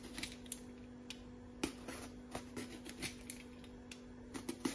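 Vegetable peeler scraping strips of skin off a raw eggplant: irregular short scrapes, a few louder ones near the end, over a faint steady hum.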